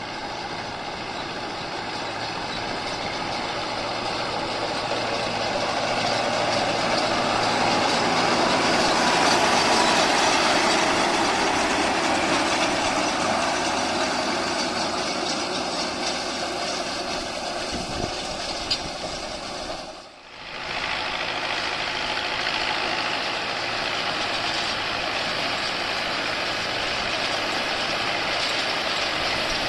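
Massey Ferguson 4299 tractor's diesel engine working steadily under load as it pulls a John Deere 592 round baler baling alfalfa, the baler's running noise mixed in. It grows louder toward the middle and then eases, with a brief break about two-thirds of the way through.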